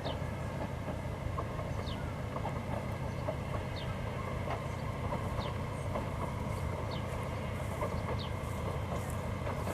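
3TE10M diesel locomotive's engines running at a steady idle: an even, unbroken low rumble. Short high chirps recur about once a second.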